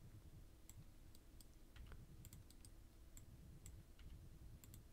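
Faint, irregular clicks of a computer mouse and keyboard over near silence, about a dozen, while a character is posed in 3D animation software.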